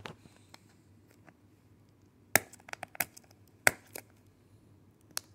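A small cardboard retail box and its packaging being handled and pried at by hand: a few sharp cracks and snaps, the loudest about two and a half and three and a half seconds in, with quieter ticks between, as the tight packaging resists opening.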